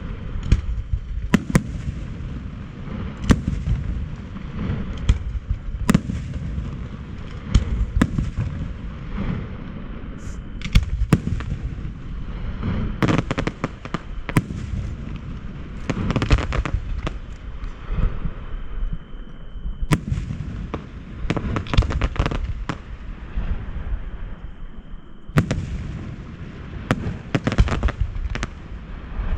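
Aerial fireworks display: shells bursting in a rapid series of sharp bangs over a continuous low rumble, in denser volleys at times.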